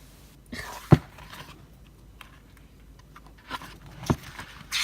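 Pages of a photo book being turned and handled: brief paper rustles with a sharp thump about a second in and a softer knock near the end.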